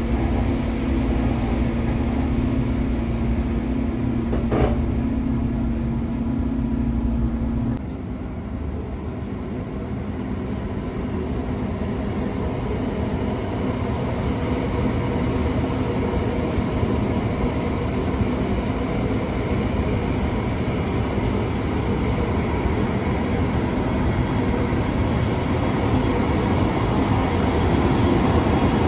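Taiwan Railway E500 push-pull Tze-Chiang express heard from on board while standing at a station: a steady low hum with one sharp click. About eight seconds in the hum cuts off and the train pulls away, its running noise building gradually.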